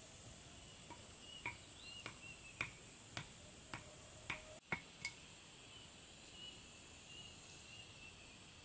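Steady high insect drone with faint short chirps over it. In the first half comes a run of about eight sharp clicks, roughly two a second, which then stop.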